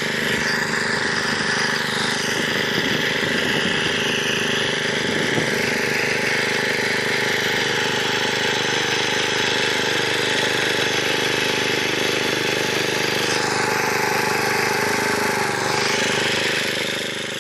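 Luch walk-behind tractor's engine running steadily under load as it tills soil with its rotary cutters, the pitch dipping briefly near the end.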